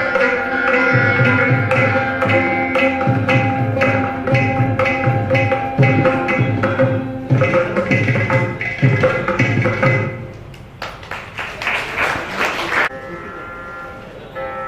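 Carnatic music on several veenas with hand-percussion accompaniment, the plucked strings and drum strokes closing about ten seconds in. Applause follows for about two seconds and stops abruptly.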